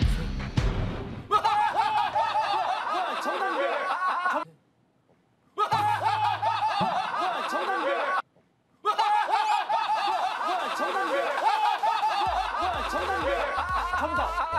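A group of people laughing hard together, cut off twice by brief dead silences. Background music plays in the first second and comes back near the end.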